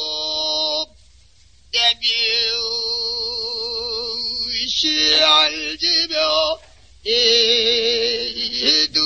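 Pansori singing: a solo voice sustaining long notes with a wide, wavering vibrato, in phrases broken by short pauses about a second in and again after six seconds.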